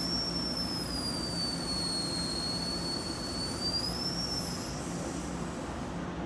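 NJ Transit multilevel commuter train rolling past with a steady rumble. Over it, a high-pitched whine or squeal for about five seconds that sags slightly in pitch, rises again and then stops.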